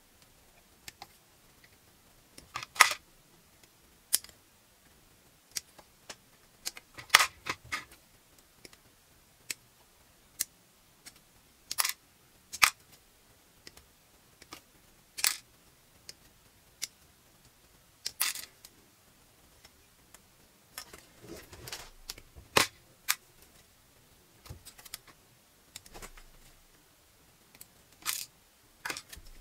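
Hobby side cutters (nippers) snipping plastic model-kit parts off the runner: sharp single clicks at irregular intervals, every second or few, with light rustle and clatter of the plastic runner being handled.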